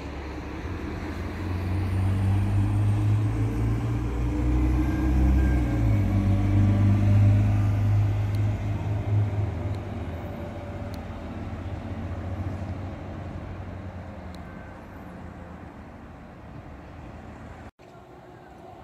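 A city bus drives past on the street below. Its low engine drone grows louder over the first few seconds, then fades as it moves away.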